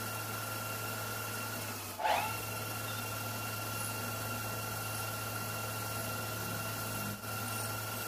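Metal lathe turning a piston, its motor and drive giving a steady whine over a low hum, with a brief sharp burst about two seconds in.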